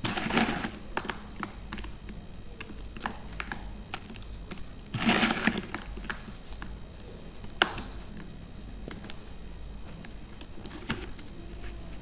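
Broken pieces of pressed baking soda being crunched and crumbled: two longer crunches, one at the start and one about five seconds in, with scattered small crackles and a single sharp snap between them.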